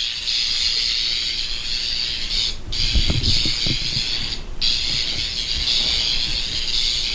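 Electric crackling sound effect of Force lightning: a steady, buzzing crackle that cuts out briefly twice near the middle.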